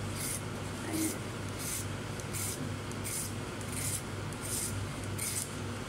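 Vegetable peeler scraping the skin off a carrot in short, regular strokes, about one every three-quarters of a second.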